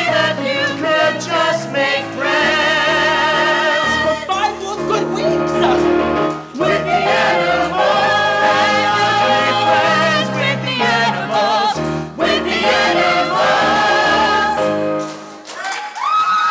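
Several voices singing the end of a musical-theatre song over backing music, holding long notes with vibrato; the song ends shortly before the end.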